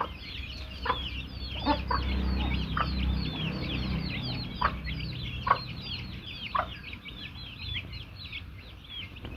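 Baby chicks peeping continuously, a fast stream of short high chirps, with a few short clucks now and then from an adult chicken.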